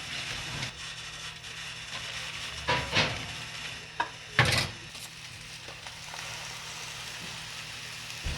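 Food sizzling steadily, with a few sharp knocks or clatters; the loudest comes about four and a half seconds in.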